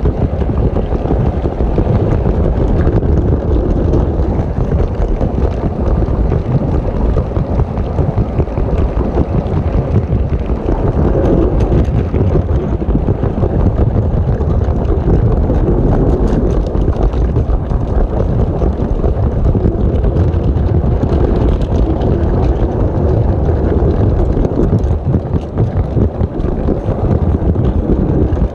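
Steady loud rumble and rattle of a LEGO train rolling along plastic track, heard from a camera riding on the train, with faint clicks scattered through it.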